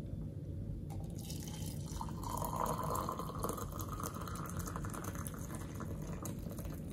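Hot water poured in a steady stream into a mug over a tea bag, starting about a second in, with the sound of the mug filling.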